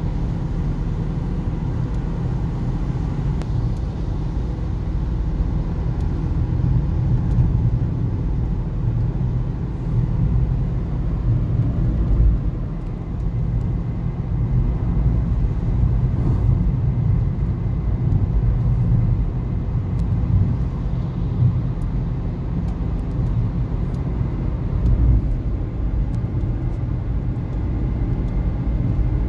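Cabin noise of a car driving on a wet motorway: a steady low rumble of engine and tyres.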